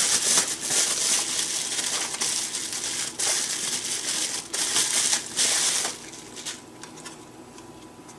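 Plastic bubble wrap crinkling and rustling as hands pull it off a small metal blower fan, stopping about six seconds in, followed by a few faint ticks.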